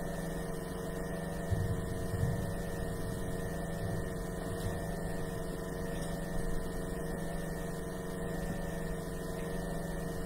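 Steady electrical mains hum with quiet room tone and a few faint soft thumps.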